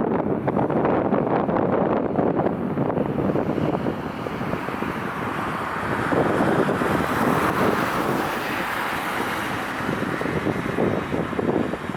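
Strong wind buffeting the microphone. A smoother rush of jet airliner engines swells in the middle and fades again.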